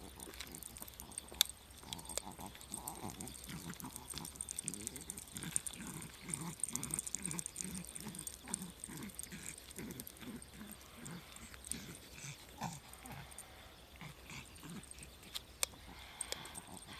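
Small dog panting rapidly, about three quick breaths a second. It is out of breath after only a short walk.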